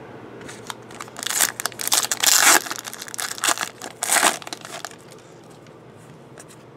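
Foil wrapper of a baseball card pack being torn open and crinkled, a run of sharp crackling rustles starting about a second in, loudest in the middle and dying away after about four and a half seconds.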